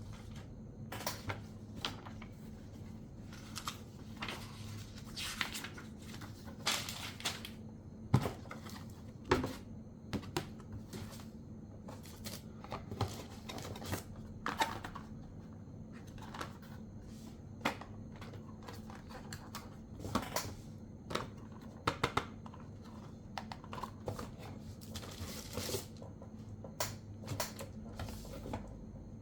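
Unboxing a microphone: irregular clicks, taps and rustles of packaging and parts being handled, with a steady low hum underneath.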